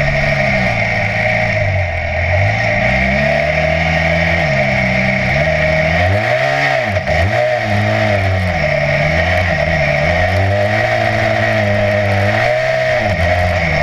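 Adventure motorcycle engine under hard riding on a sandy track, the revs swinging up and down with throttle and gear changes, dropping sharply about halfway through and again near the end.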